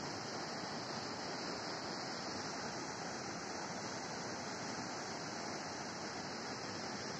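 A swollen river in flood, its brown water rushing steadily around bridge piers: an even, unbroken rushing noise.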